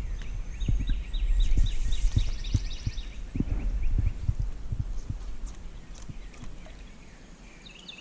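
Irregular low thumps over a steady low rumble, with a bird singing a quick run of repeated chirps during the first three seconds. The rumble and thumps fade toward the end.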